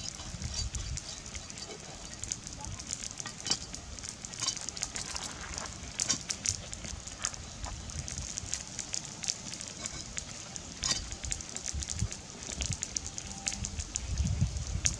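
Knife cutting and scraping a catfish against a stone surface: irregular crackling clicks and scrapes over a steady high hiss, with low rumbles just after the start and again near the end.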